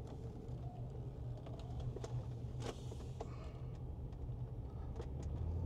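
Land Rover LR4 driving, heard from inside the cabin: a low, steady engine and road hum, with a few faint clicks.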